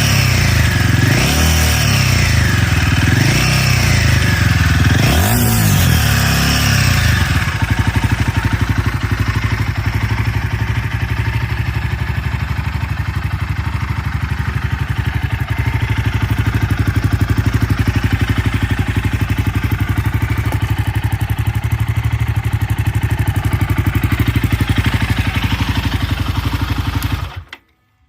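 Royal Enfield Himalayan 450's single-cylinder engine through an aftermarket Zard exhaust: blipped up and down several times, then settling to a steady, pulsing idle, and switched off about a second before the end.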